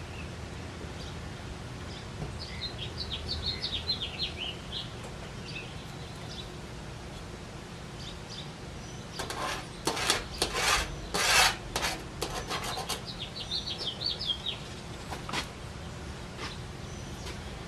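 Ballpoint pen drawing cut lines on a trailer's sheet-metal siding: a run of short scratchy strokes about nine to twelve seconds in, with a couple of single strokes later.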